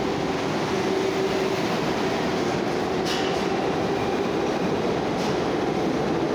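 New York City subway train of stainless-steel cars running past the platform: a steady rumble of wheels on rail, with two brief sharp metallic sounds about three and five seconds in.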